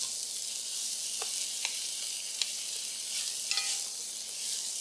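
Shredded cabbage, carrot and taro sizzling in a hot oiled wok as they are stir-fried with a wooden spatula: a steady high hiss with a few short taps and scrapes of the spatula against the pan.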